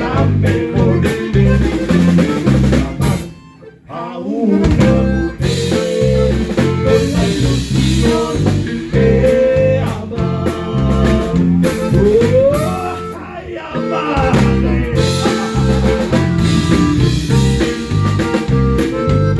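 Live band playing an instrumental passage with drum kit, bass and guitar over a steady beat. The band stops briefly about four seconds in and then comes back in.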